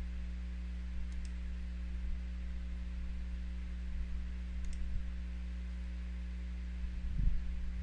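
A few computer mouse clicks over a steady electrical hum and hiss.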